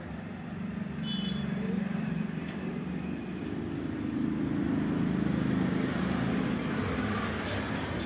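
Steady low rumble of road traffic, growing louder about a second in.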